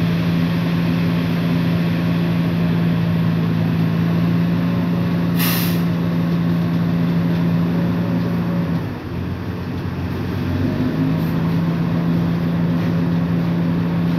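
Diesel engines of an asphalt paver and a tipping dump truck running steadily during paving. A short burst of air hiss, like an air-brake release, comes about five and a half seconds in, and the engine note drops away around nine seconds before returning about two seconds later.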